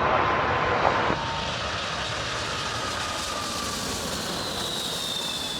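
Jet airliner passing close, its engines making a steady rush with a high whine that slowly falls in pitch.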